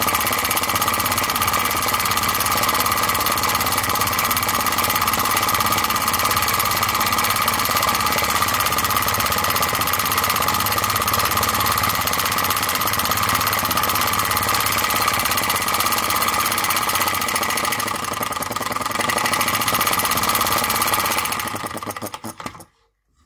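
Enjomor flame-licker (vacuum) engine running on an open flame with a steady fast beat and a ringing tone, fading and stopping near the end. It runs well with its cylinder freshly honed and deburred.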